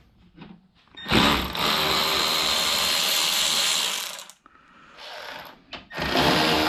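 Cordless electric ratchet running in two bursts, about three seconds from a second in and again near the end, spinning out the transmission cooler's mounting bolts.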